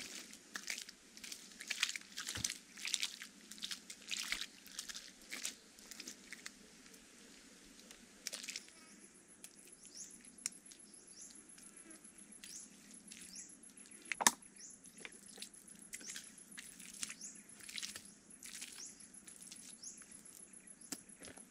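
Hands spreading and smoothing wet mud plaster over an earthen hut, a run of short wet swishes and slaps, busiest in the first several seconds. A single sharp knock about fourteen seconds in is the loudest sound.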